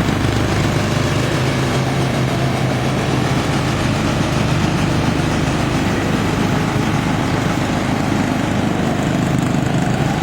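Small single-cylinder 14 hp Briggs & Stratton overhead-valve engine of a ride-on lawn mower running at a steady speed.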